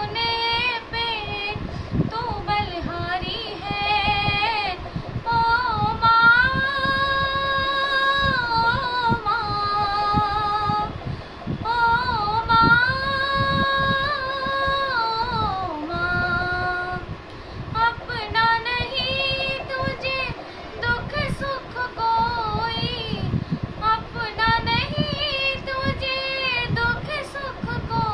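A young girl singing a melody in long, held notes with a slight waver, phrase after phrase.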